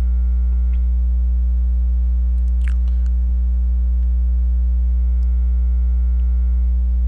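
Steady, loud electrical mains hum on the microphone: a low buzz with fainter higher tones stacked above it. The owner puts it down to something being wrong with his microphone.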